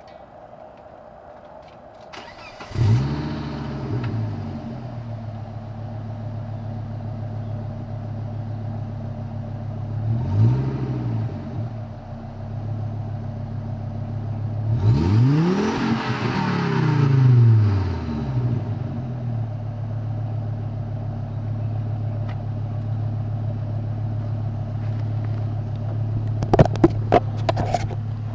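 1998 Volvo S70 T5's turbocharged inline five-cylinder engine, heard at the tailpipe through a 3-inch downpipe and straight pipe into the stock exhaust. It starts about three seconds in with a brief flare, then idles steadily. It is revved twice briefly and once longer with two peaks, before a few sharp knocks near the end.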